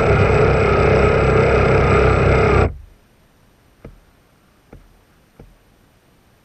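Radio-controlled bass boat's motor running under power with a steady whine, cut off suddenly a little under three seconds in. Afterwards only a faint hiss with three soft ticks.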